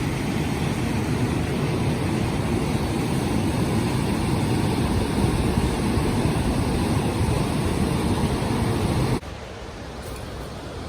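Steady rushing of falling water from a waterfall. It drops abruptly to a quieter, steady rush about nine seconds in.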